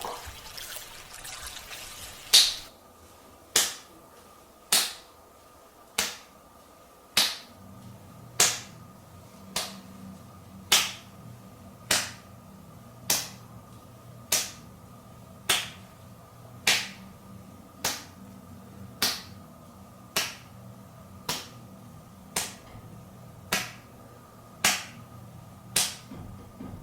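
Hands clapping back to back (ura-hakushu) in a slow, even rhythm, about twenty claps a little over a second apart, each with a short echo. A faint steady hum comes in about seven seconds in.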